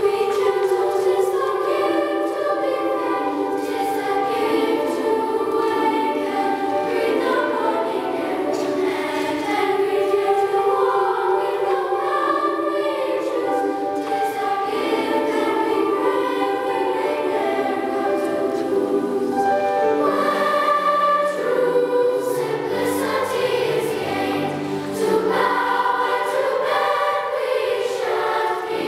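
Large children's choir singing together, with lower notes joining underneath about two-thirds of the way through.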